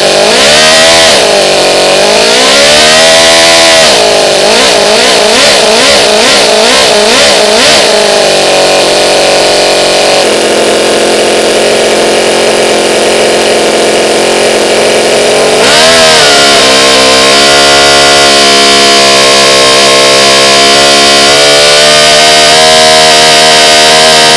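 Toyan FS-L400 14cc inline-four four-stroke model engine running. It revs up and down repeatedly for the first several seconds, then holds a steady high speed of about 9,000 rpm, with one brief dip in revs about two-thirds of the way through.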